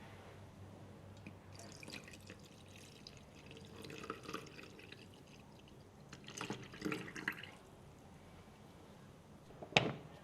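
Water trickling and splashing in two short spells, then a single sharp click near the end.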